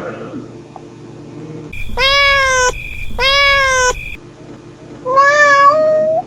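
Mother cat meowing three times: clear, drawn-out calls under a second each, the kind she uses to call her kittens.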